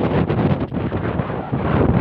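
Strong storm wind buffeting the microphone, a loud, uneven rushing noise.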